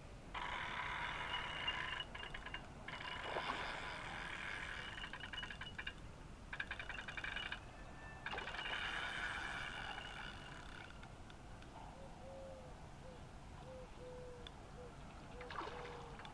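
Spinning reel on a feeder rod buzzing in bursts of one to three seconds with short pauses between them, a fast ratcheting whirr, as line moves on the spool during the fight with a fish.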